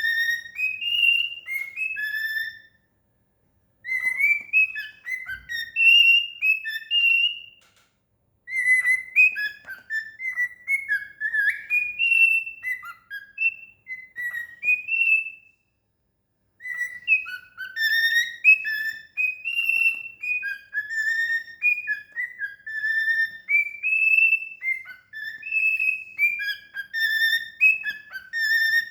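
Cockatiel singing: phrases of clear, warbling whistled notes that slide up and down in pitch, broken by a few short pauses.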